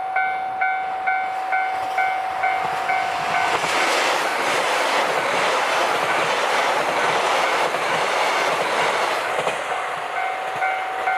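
A Japanese level-crossing warning bell rings about twice a second. From about four seconds in it is drowned out by a JR Hokkaido KiHa 261 series diesel limited express passing over the crossing, with a steady roar and wheel clatter. The bell is heard again near the end as the train goes away.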